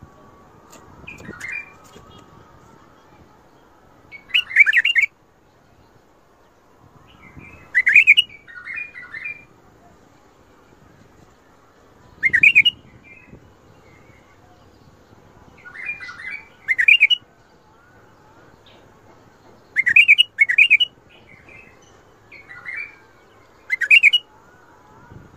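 White-eared bulbul (Iraqi bulbul) singing: short phrases of two or three quick whistled notes, repeated every three to four seconds.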